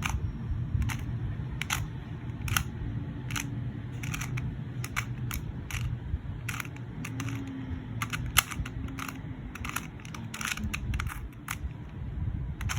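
A QiYi 2x2 speed cube clicking as its layers are turned in quick moves through an algorithm. The result is an irregular run of sharp plastic clicks, several a second, sometimes in quick bursts.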